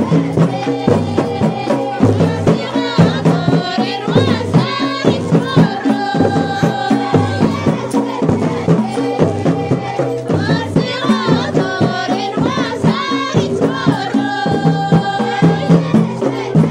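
Ahwach, Amazigh folk music: voices singing over a steady, fast drum beat.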